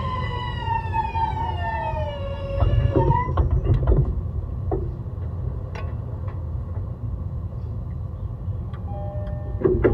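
The Hitachi hybrid-SiC VVVF inverter on a JR East E131-600 series electric train whines in a falling pitch as the train slows. The whine cuts off about three seconds in, and low running rumble with scattered clicks and knocks follows.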